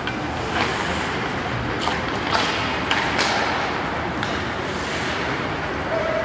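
Ice hockey play in a rink: sticks cracking against the puck and knocks off the boards and skates, five or so sharp hits, the loudest about two and a half and three seconds in, over a steady wash of rink noise.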